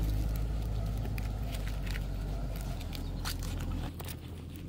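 Fresh banana leaves crackling and rustling in short clicks as they are folded and pushed into the mouths of aluminium drink cans, over a low steady rumble that drops away about four seconds in.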